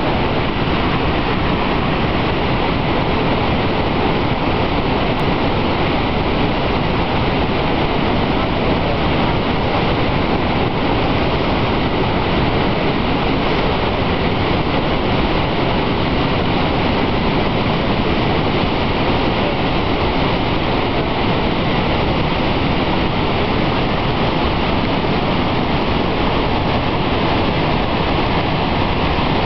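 Niagara's Horseshoe Falls pouring over its brink: a loud, steady rush of falling water that does not let up.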